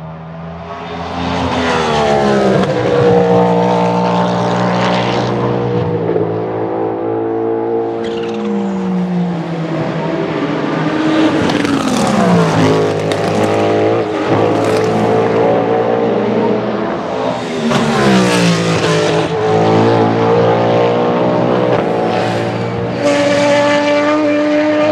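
Cadillac V-Series.R hypercar's naturally aspirated 5.5-litre V8 racing past several times, loud and high-revving. Its pitch falls sharply a few times as it brakes and shifts down, then climbs again as it accelerates away.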